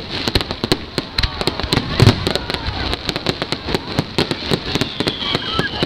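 Fireworks display: a rapid barrage of bangs and crackling shell bursts, several every second, with a heavier boom about two seconds in.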